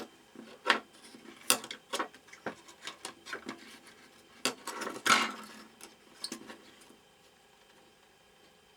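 Light, irregular clicks and taps of a disassembled TV remote control's plastic casing and circuit board being handled, with a louder cluster of handling noise about five seconds in.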